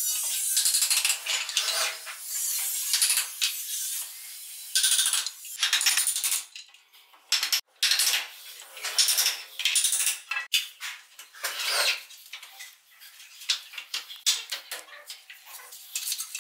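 Irregular clinks and sharp taps of hand tools and hardware as wooden stair balusters are fitted.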